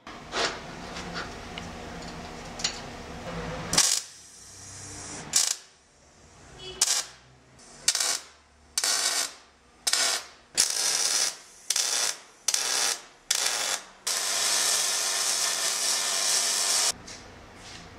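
A MIG welder arcing in about ten short spells of under a second each, with brief gaps between them: tack welds. Then one longer run of about three seconds: a continuous bead. In the first few seconds, before the welding, there are a few metallic clicks as the steel piece is handled.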